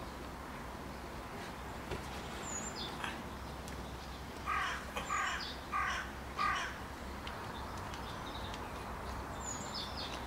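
A bird calling four times in quick succession, the calls about two-thirds of a second apart, with a few faint high chirps from small birds before and after.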